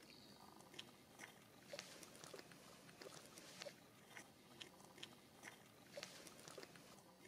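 Near silence with faint, irregular light clicks and crackles, one or two a second.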